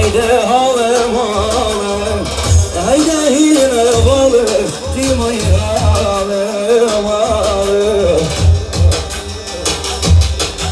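Folk music: a singer's wavering, ornamented melody over a steady drum beat. The voice stops about eight seconds in and the drum beat carries on.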